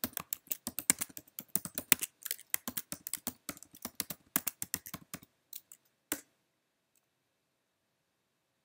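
Fast typing on a computer keyboard: a rapid run of key clicks that stops about five seconds in. A few more keystrokes follow, then one sharp key press about six seconds in.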